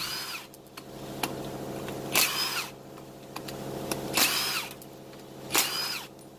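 Cordless impact wrench with a socket spinning out the oil pump bolts on a Mazda RX-8 rotary engine, in four short bursts each about half a second long, its motor whine rising and falling with each burst.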